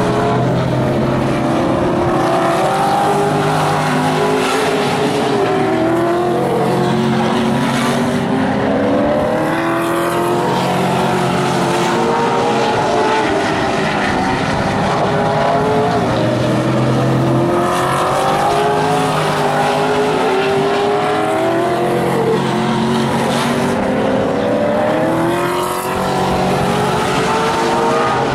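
Vintage modified race car engines running at racing speed, several at once, their pitch rising and falling in waves every several seconds as the cars lap the oval and pass by.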